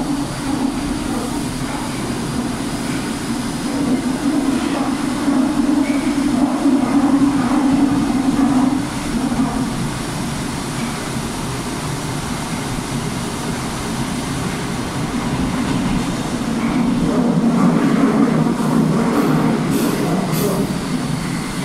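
Subway train running through a tunnel, heard from inside the passenger car: a steady low drone of wheels and motors that swells twice, with a few sharp clicks near the end.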